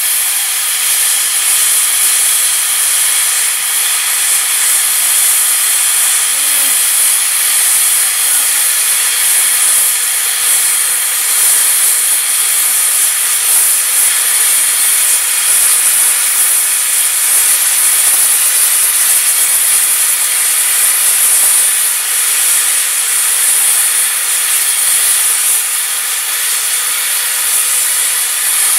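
Hypertherm Powermax 105 plasma cutter with FLUSHCUT consumables, its arc cutting steadily through 25 mm steel in a continuous high hiss without a break. The torch is held flat to flush-cut a lifting lug off the base plate.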